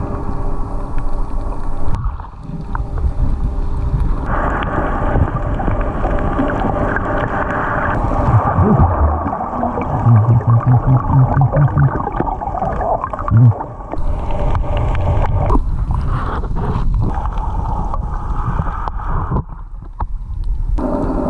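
Boat engine noise heard underwater: a continuous low drone with whining tones that shift in pitch, a quick run of even pulses about ten seconds in, and a few sharp knocks later on.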